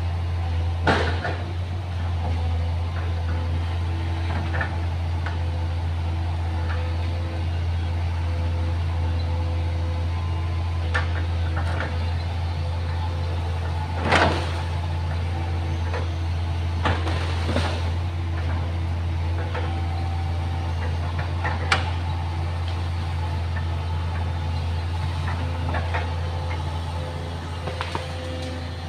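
Excavator's diesel engine running steadily, with whining tones that come and go over it and a few sharp knocks, the loudest about 14 seconds in.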